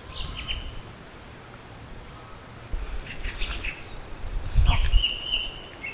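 Wild birds chirping, with short high notes scattered through and a held high note near the end, over low rumbling bumps about halfway and again near the end.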